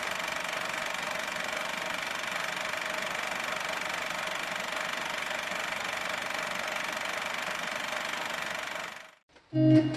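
8-ton hydraulic log splitter's motor and pump running steadily with an even whine, cutting off suddenly about nine seconds in. Guitar music starts right after.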